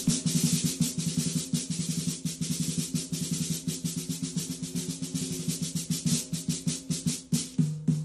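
Floor tom converted into a deep snare drum, with a snare drum fastened beneath it, played with sticks in fast strokes and rolls at about six or seven hits a second over a steady low drum tone. The playing stops shortly before the end.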